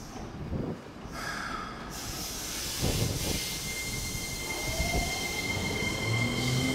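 Keikyu electric train pulling away from the platform, its motors whining and rising steadily in pitch as it gathers speed, over steady high electrical tones.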